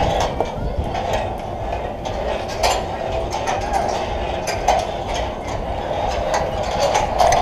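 Wind rumbling on the camera's microphone, with sharp metallic clicks and clanks every second or two from the safety-harness trolley and carabiners on the overhead rail.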